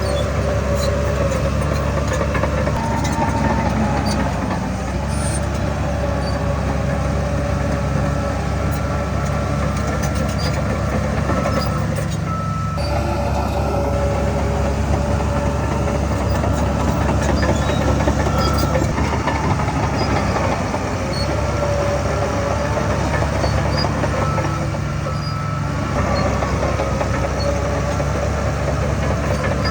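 Heavy diesel earthmoving machinery running steadily, a low engine drone with a whining tone that wavers in pitch over it.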